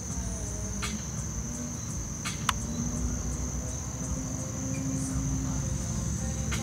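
Crickets chirring steadily in one unbroken high-pitched drone over a low rumble, with a few faint clicks and one sharper click about two and a half seconds in.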